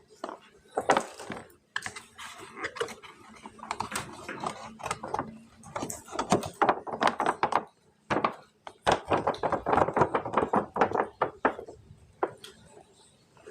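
Hands unboxing plastic superhero toy figures: packaging rustling, with many quick clicks and light knocks of plastic.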